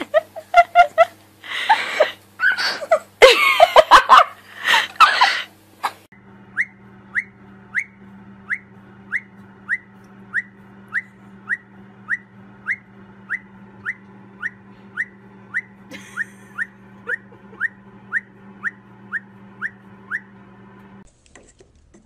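Several loud, rough bursts of sound in the first six seconds, then a caique giving a long string of short rising whistled chirps, very even at about two a second, over a steady low hum.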